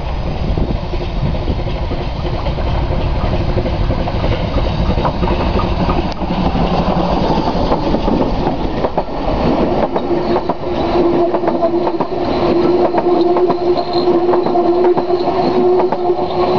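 Vale of Rheidol Railway narrow-gauge locomotive No 10 approaching and passing close by with its engine running, then its coaches rolling past with clickety-clack over the rail joints. A steady tone runs under the passing coaches from about ten seconds in.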